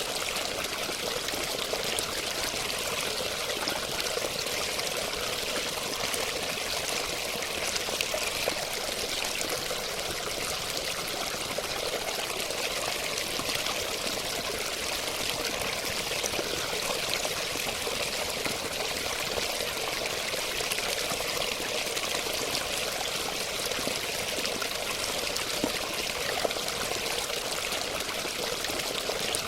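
Running water flowing and splashing steadily, with no change in strength.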